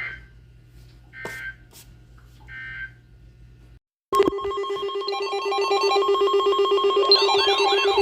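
Three short two-pitch data bursts of an Emergency Alert System SAME end-of-message code, about a second and a quarter apart, closing the previous alert. A brief silence follows. Then, with a click about four seconds in, an electronic alert tone starts: a loud, rapidly pulsing chord of several pitches, joined about three seconds later by repeating warbling sweeps.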